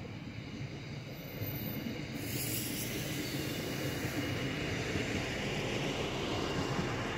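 DB class 628 two-car diesel railcar passing close by, its engine and wheels on the rails growing louder about two seconds in and then running steadily, with a faint high whine.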